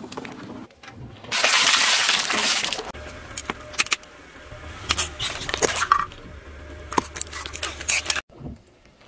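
A car tyre rolls over Orbeez-filled squeeze balls, giving a loud noisy burst about a second long. Then the tyre crushes a row of small coloured light bulbs: a string of sharp cracks and snaps over a low engine hum.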